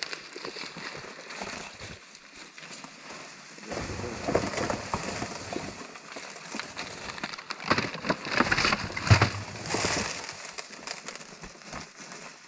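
Corn cobs and other bear bait being dumped and shifted into a bait barrel: irregular rustling and clattering, louder in two spells, a few seconds in and again past the middle.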